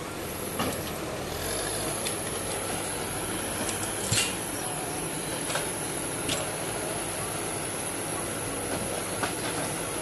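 Escorts backhoe loader's diesel engine running as the machine moves, with a few sharp knocks, the loudest about four seconds in.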